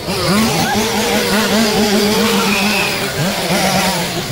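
Chainsaw engine running loud and being revved: the pitch climbs at the start, holds, drops back near the end and climbs again.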